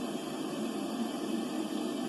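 Steady underwater background noise picked up by a hydrophone: an even hiss with a deeper rushing band, with no knocks or clicks.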